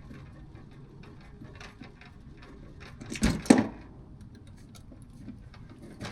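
Scattered small clicks and handling noises, with two louder knocks close together a little past the middle, over a low steady hum.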